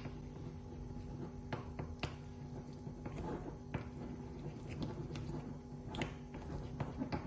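Small metal spoon stirring thick melted chocolate and butter in a ceramic bowl, with scattered light clicks and scrapes of the spoon against the bowl, over faint background music.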